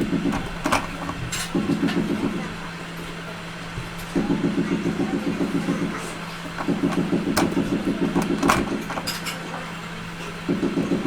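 A workshop machine with a steady hum, whose motor-driven tool runs in repeated bursts of one to two seconds of rapid, even pulsing. Sharp clicks and knocks come in between.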